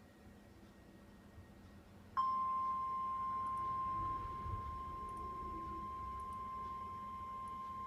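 Faint radio hiss, then about two seconds in the NOAA Weather Radio 1050 Hz warning alarm tone starts sharply: one steady, unwavering high tone. It signals that a warning broadcast is about to follow.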